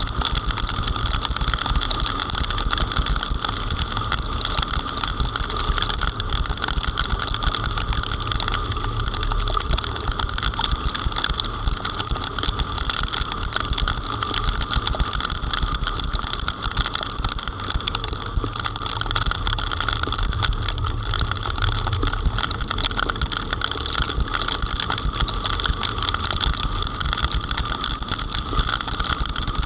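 Heavy rain and a car driving through it: a steady rain hiss over the rumble of the car's engine and its tyres on the wet road.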